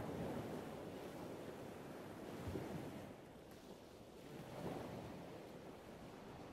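Outdoor rush of wind and distant ocean surf, swelling and easing every couple of seconds.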